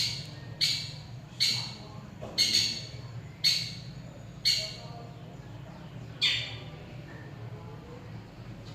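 Long-tailed shrike (cendet) giving a series of about eight short harsh calls, roughly one a second, stopping a little after six seconds in.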